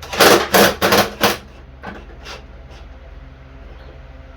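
Metal mower parts clanking as a brake-linkage bushing is worked into line: about four loud knocks in the first second and a half, then two fainter ones. A low steady hum runs underneath.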